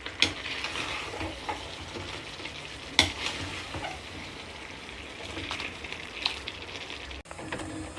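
Food sizzling in a frying pan while being stirred, with a few sharp scrapes or knocks of the spoon against the pan. The sound breaks off abruptly just after seven seconds.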